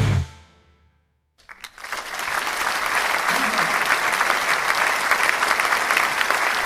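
The song's last notes ring out and fade, and after a brief silence an audience's applause builds up and carries on steadily.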